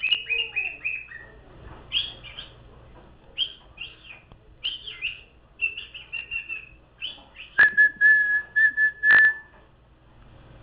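Cockatiel whistling and chirping: runs of short, quick, high chirps, then about three quarters of the way through a longer, steady, lower whistled note broken into a string of pulses.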